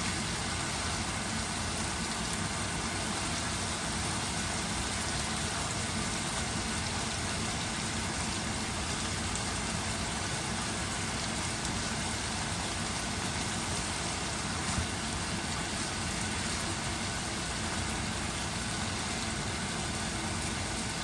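Chicken breast frying in a pan, a steady even sizzle.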